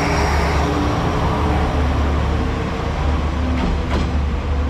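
KiHa 47-series diesel railcar train (the Kanpachi-Ichiroku set) pulling out of the station, with a steady low engine rumble and running noise on the rails. Two sharp clicks come near the end.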